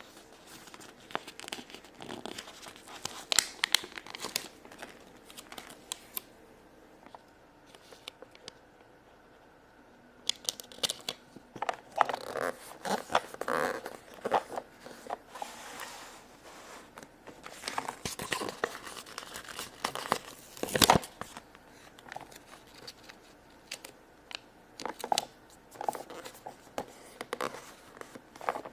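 Stickers being peeled from their paper backing sheet and pressed onto a plastic toy playset: irregular crinkling and light tearing of paper, with scattered taps and clicks of handled plastic. One sharp click about two-thirds of the way through is the loudest sound.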